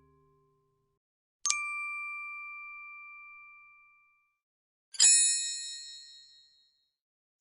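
Two separate ding sound effects. About a second and a half in comes a clear, pure bell-like ding that rings down slowly over about two seconds. About five seconds in comes a brighter, more metallic ding with several high overtones that fades faster.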